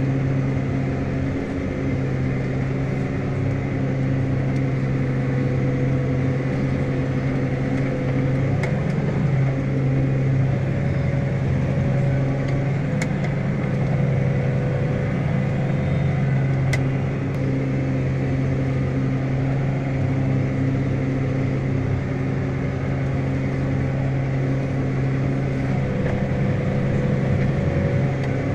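New Holland T7.245 tractor engine running steadily under load, heard from inside the cab as an even drone. There are a few faint clicks.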